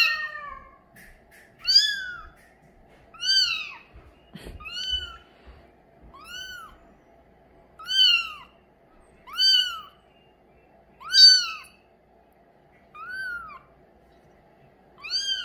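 Bengal kitten mewing over and over, about ten high calls roughly every one and a half seconds, each rising then falling in pitch. A low bump from handling comes about four seconds in.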